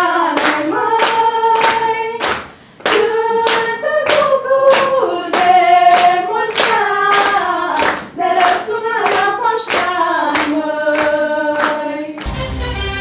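Group of girls singing a lively Romanian song together, clapping along in a steady beat of nearly three claps a second, with an acoustic guitar accompanying. Near the end it cuts abruptly to a different music bed.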